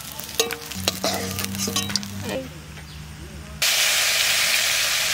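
A metal spatula scraping and clicking in an aluminium kadai as fried rohu fish steaks are lifted out. About three and a half seconds in, a sudden loud, steady sizzle of fish frying in hot mustard oil.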